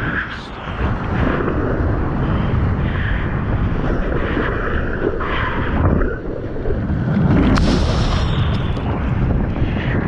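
A surfer's hands paddling through seawater in repeated splashes, with water and wind rushing over the microphone as a wave builds under the board. About seven seconds in there is a louder, brighter rush of water.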